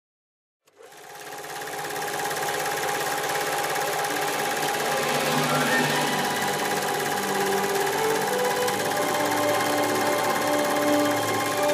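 Film projector running sound effect: a steady, rapid mechanical clatter that fades in about a second in.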